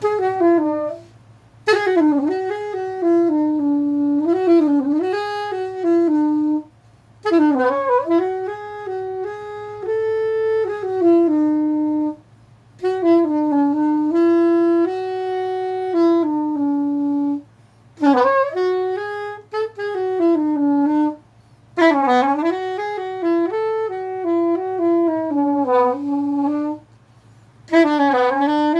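Jean Paul SS400GP curved soprano saxophone played in a run of short melodic phrases with brief breath pauses between them, many notes scooped and bent in pitch. The intonation is a little off on this new horn, by the player's own account.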